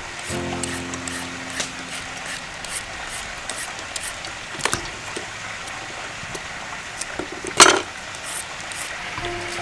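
Julienne peeler scraping down a raw carrot in repeated short strokes, about two or three a second, shredding it into thin strips. One much louder knock about three-quarters of the way through, and a low hum for a couple of seconds near the start.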